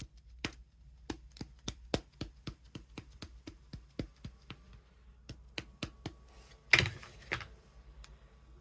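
Rapid light taps, about three a second, of an ink pad being patted onto a rubber stamp to ink it, followed about seven seconds in by two louder brief scuffing sounds.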